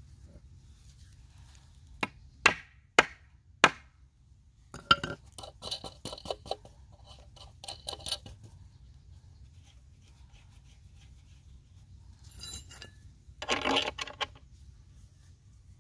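Metal hand tools clinking and knocking: four sharp taps, then a run of rattling clinks, and a short dense rattle near the end, as a spanner is fitted to and turned on the bolts holding a timber batten to a wall.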